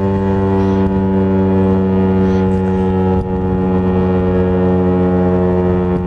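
Federal Signal STH-10 dual-tone outdoor warning siren sounding a loud, steady tone at full speed, its pitch holding level, with a brief dip in loudness about three seconds in.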